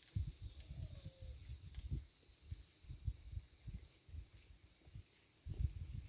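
Cricket chirping steadily, about two or three short high chirps a second, over faint low knocks and rustles of handling.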